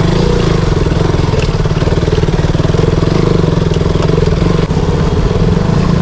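Motorcycle engine running steadily while under way, with a fast, even firing beat.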